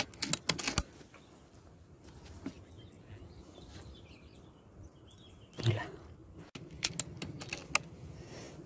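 Sharp clicks and clatter in the first second, then a single louder report from a PCP air rifle shot about five and a half seconds in, and a few more sharp clicks a second or so later.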